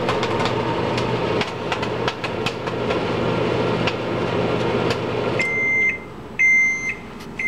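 Microwave oven running with a steady hum while popcorn kernels pop irregularly inside a brown paper bag. About five seconds in, the hum stops and the oven beeps twice, with a third beep starting near the end, signalling the end of the cooking cycle.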